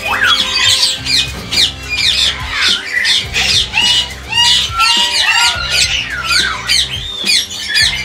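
Lories squawking and chirping, many quick overlapping shrill calls, over background music with steady low notes.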